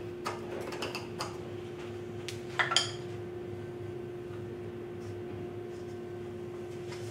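A sharp metal point scratching and ticking against a wooden harpsichord lower-guide support, marking where the holes go: a quick run of small clicks in the first second or so, then a single louder clatter of wood being handled about 2.7 s in. A steady low hum runs underneath.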